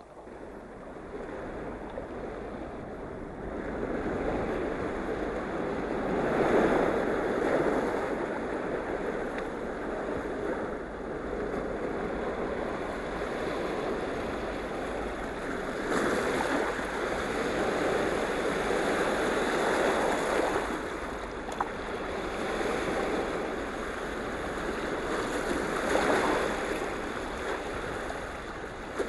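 Sea waves washing in on the shore, swelling up roughly every ten seconds.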